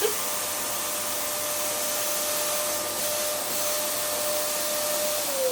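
Bosch vacuum cleaner running steadily, a hiss of air with a steady motor whine that drops in pitch near the end. A brief knock sounds at the very start.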